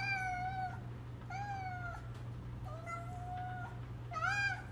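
A domestic cat meowing four times in a row, drawn-out meows, the last one short and the loudest.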